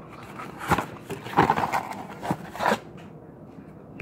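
Plastic shrink wrap crinkling and tearing as it is pulled off a cardboard trading-card blaster box, in several short crackly bursts, quieter near the end.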